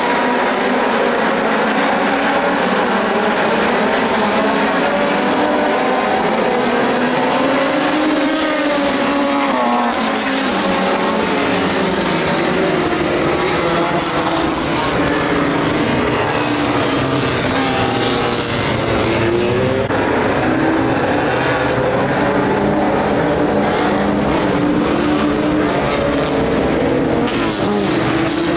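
Engines of a field of dirt-track stock cars running together at part throttle as they circle under caution, several pitches drifting up and down as the cars pass.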